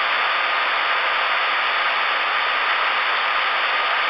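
Steady hiss of CB radio static from a Galaxy DX-919 receiver's speaker, with the squelch open and no station keyed, and a faint steady tone under it.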